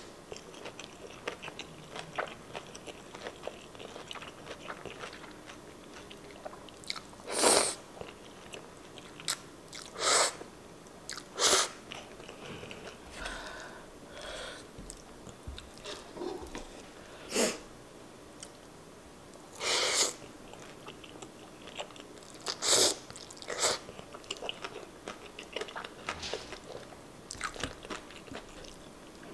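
Close-miked eating of kimchi angel hair pasta: a steady run of soft, wet chewing and mouth clicks, with about six louder short slurps of noodles spread through it.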